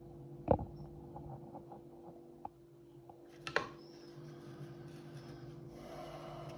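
Knife and plastic-reinforced nylon sheath being handled: two sharp clicks about three seconds apart, with light tapping and rubbing between, over a steady low hum.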